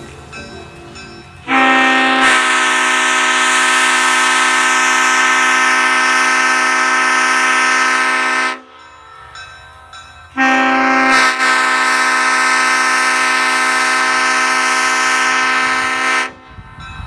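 Restored 1970 Leslie S5T five-chime locomotive air horn with dome-back power chambers, sounding two long blasts of about six to seven seconds each. Each blast is a steady chord of several notes. In the first blast the bells fill in over about a second.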